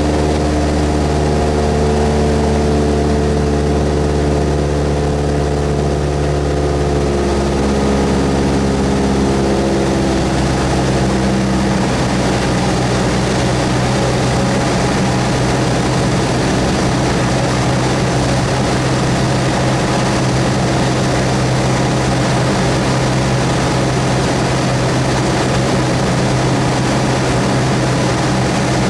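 Cessna 172S's four-cylinder Lycoming piston engine and propeller running steadily. The engine note changes pitch between about 7 and 12 seconds in, then holds steady.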